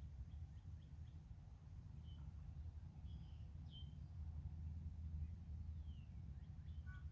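Faint, scattered bird chirps, a few short calls a second or so apart, over a steady low rumble.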